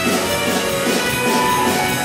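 An ensemble of Russian gusli, many plucked lap psalteries together, playing a lively tune backed by a drum kit.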